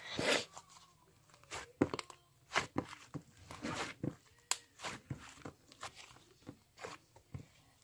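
Irregular, close-up crunching and crinkling clicks, a rapid uneven series of short crackles with a longer rustling burst at the very start.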